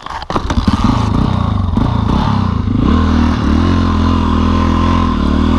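Single-cylinder engine of a Yamaha XT dual-sport motorcycle opened up suddenly about a third of a second in, then held at steady high revs while pushing through deep snow.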